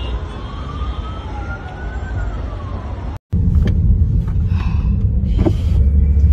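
Emergency vehicle siren wailing, with a slow rise and fall in pitch, over a low rumble. About three seconds in it cuts off, and a heavier low rumble of road and wind noise from a moving car follows.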